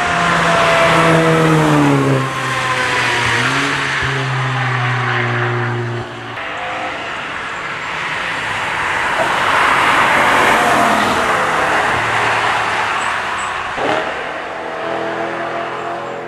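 Cars passing one after another on a wet race track. First an engine note falls in pitch and then holds steady. Then a louder rush of tyres on wet tarmac with engine noise as a second car goes by, and a short click is followed by another engine near the end.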